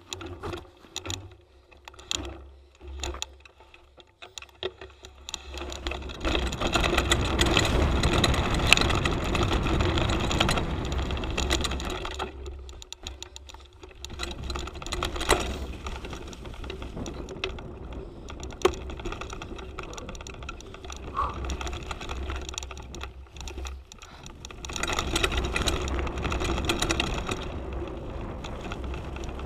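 Mountain bike ridden over bumpy dirt trails, heard from a handlebar-mounted camera: the bike rattles and knocks over the bumps, with a louder rush of tyre and wind noise at speed from about six to twelve seconds in and again near the end.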